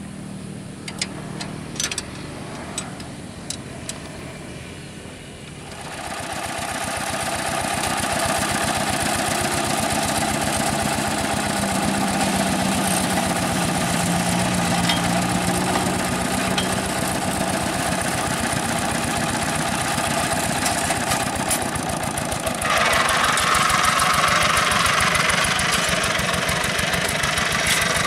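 Single-cylinder diesel engine of a two-wheel hand tractor running: quieter at first with a few sharp knocks, it picks up to a steady working speed about six seconds in and steps up louder again near the end.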